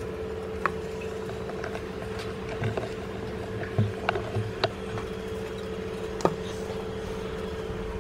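Wooden spoon stirring a pot of thick coconut-milk pudding, knocking against the metal pot a few times with sharp clicks and soft thuds. A steady hum runs underneath.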